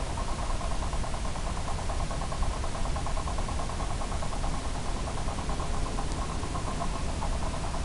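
Electric motor and propeller of a battery-powered FPV aircraft running at a steady mid throttle in flight, a constant buzzing drone over rushing wind noise.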